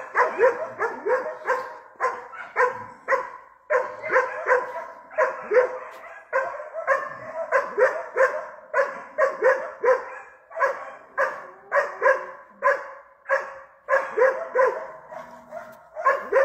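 Hunting dog barking at wild boar it is holding at bay: rapid, unbroken barking, about three barks a second.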